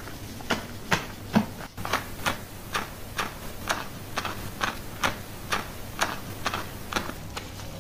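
Hands scrubbing shampoo lather through wet hair and scalp, each stroke a short wet swish, about two a second in a steady rhythm.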